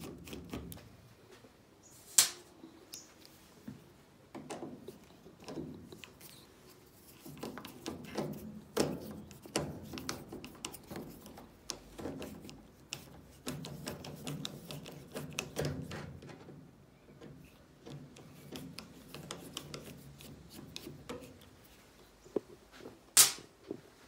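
A hand screwdriver undoing screws from the back of a Fisher & Paykel washing machine's plastic control panel: a run of small irregular clicks and scrapes, with a sharp click about two seconds in and another near the end.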